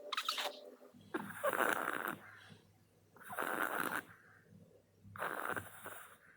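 Maltese dog snoring in her sleep: three long snores about two seconds apart, with a short one right at the start.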